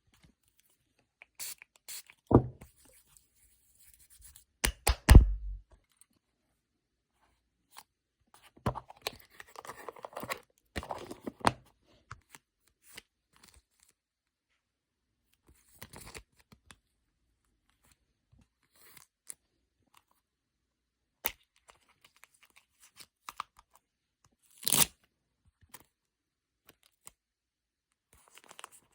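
Hand-packing photocards: scattered tearing and rustling of tape and plastic packaging, with a few thuds on the table, the loudest about five seconds in, and a busier stretch of handling in the middle.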